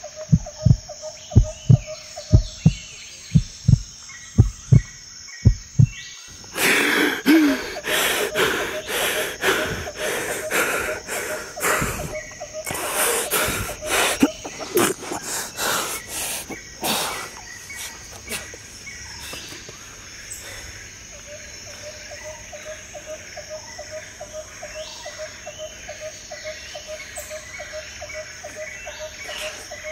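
Slow heartbeat sound effect, low double thumps about once a second, over steadily chirping insects. About six seconds in it gives way to a loud, irregular noisy passage full of sharp cracks lasting about ten seconds, after which crickets chirp steadily.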